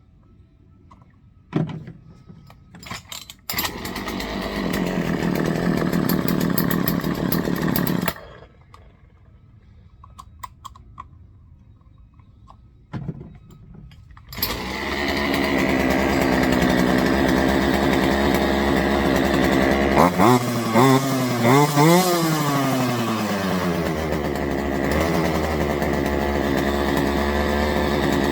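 Craftsman 40cc two-stroke chainsaw being pull-started: it runs for about four seconds and dies, then is pulled again, catches and keeps running. In the middle of the second run it is revved up and down a few times.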